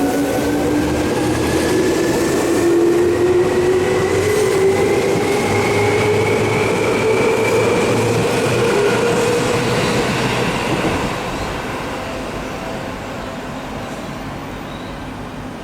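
Seibu Shinjuku Line electric train pulling out and accelerating, its motors giving a whine that rises steadily in pitch over rumbling running noise. It fades away from about eleven seconds in as the train leaves.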